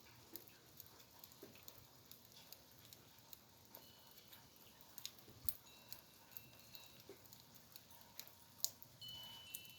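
Faint, irregular ticking and dripping of water and freezing rain, a few small ticks a second, with a few thin high tones near the end.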